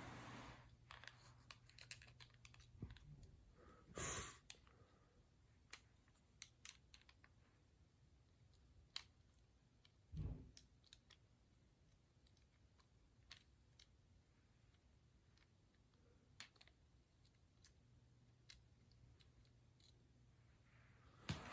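Faint, scattered clicks and taps of small plastic toy parts and a spring being handled and fitted together, with a brief rustle about four seconds in and a dull thump about ten seconds in.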